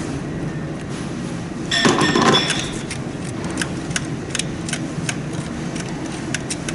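Small metallic clicks and clinks of hand tools being worked on top of a car engine, irregular and light, with a louder clatter about two seconds in, over a steady workshop background hum.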